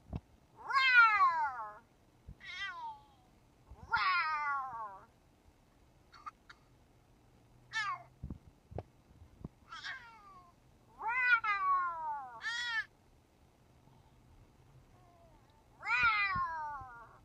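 A series of about eight meows, each sliding down in pitch, with pauses of a second or more between them.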